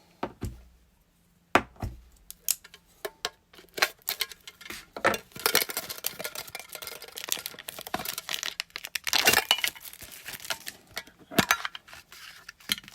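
A Pokémon card product box being pried and torn open by hand: cardboard and plastic packaging handled with clicks and knocks, a few dull thumps in the first two seconds, and stretches of tearing and crinkling around the middle and near the end.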